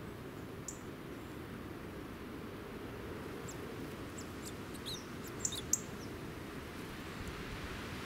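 Small songbirds giving short, high chirps: a few scattered ones, then a quick cluster about five to six seconds in, over a steady low background noise.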